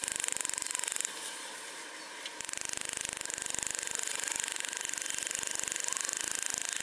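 A 16-ounce steel hammer striking a tightly compacted aluminum foil ball on a cutting board in a rapid, even run of sharp metallic taps, so fast they blur together. The tapping eases off briefly a little after a second in, then resumes at the same pace.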